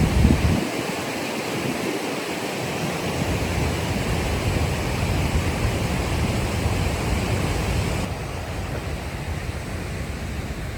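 Rushing water, a steady roar of noise, with wind buffeting the microphone in the first second. About eight seconds in the sound turns duller.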